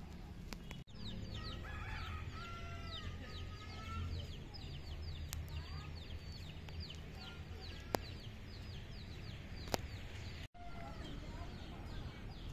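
Chickens clucking and birds chirping in quick, high, falling notes over a low steady rumble. The sound cuts out for an instant about a second in and again near the end.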